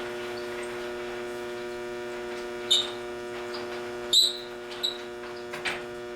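Steady electrical hum in a boiler room, with three sharp metallic clinks of tools on the boiler door's cast-iron clamps as they are loosened; the loudest clink comes about four seconds in.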